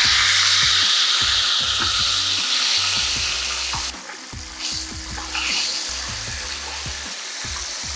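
Hot oil sizzling loudly around a large coated flounder deep-frying in a pan. About four seconds in, the sizzle drops off sharply as the fish is lifted out of the oil, leaving a quieter, crackly bubbling.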